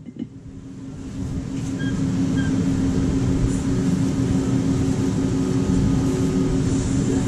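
Steady low mechanical drone with a constant hum, fading in over the first second or so and then holding even: running machinery in the food truck.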